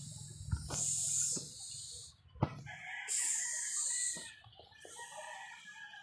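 A rooster crowing, with scattered clicks and a sharp knock about two and a half seconds in.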